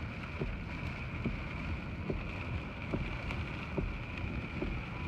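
Steady road and wind noise inside a moving vehicle's cabin, with a constant high hum and a soft regular tick a little more than once a second.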